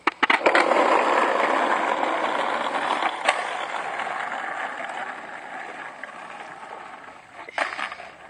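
Skateboard dropped onto asphalt with a few clacks, then its wheels rolling over rough pavement in a steady grinding rush that slowly fades. There is one sharp knock about three seconds in and a quick cluster of clacks near the end.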